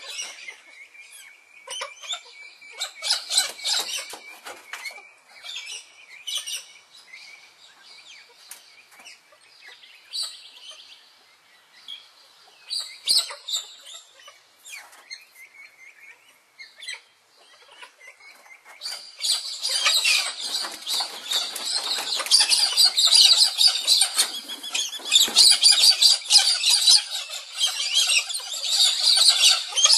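Wild birds calling with scattered high chirps, which about two-thirds of the way in swell into a loud, dense, continuous chorus of chirping.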